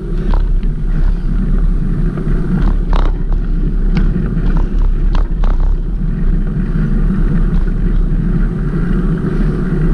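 Steady low rumble of wind buffeting the microphone on a moving bicycle, with a few short clicks.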